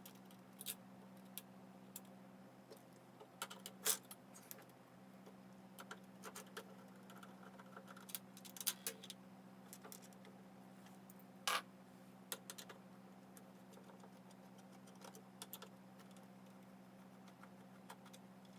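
Scattered light clicks and taps of small hardware being handled on a table, over a steady low hum.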